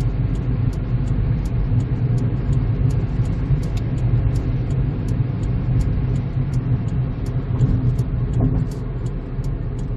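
Kia Morning city car under way, heard from inside the cabin: a steady low rumble of engine and road noise, easing slightly near the end.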